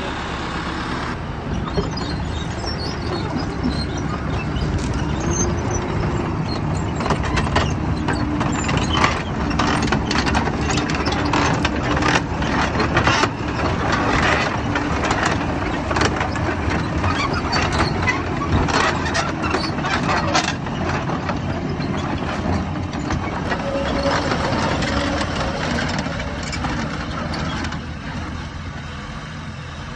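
TDT-55 crawler tractor's diesel engine running steadily, with dense metallic clattering through the middle. The sound eases off near the end.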